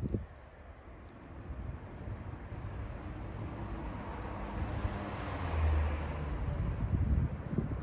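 A passing vehicle: a broad tyre-and-engine hiss swells to a peak about five to six seconds in, then begins to fade, with low rumble underneath.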